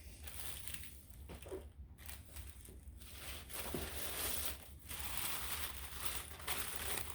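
Packaging rustling and crinkling as an item is lifted out of a box and unwrapped, growing busier about halfway through.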